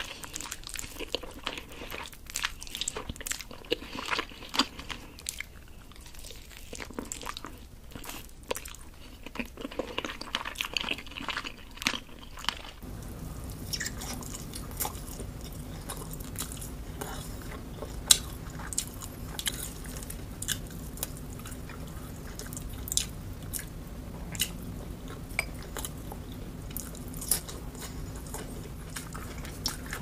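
Close-miked eating of roast chicken: biting into the meat and chewing, with many short wet smacks and clicks. About halfway through the background changes to a steady low hum under the chewing sounds.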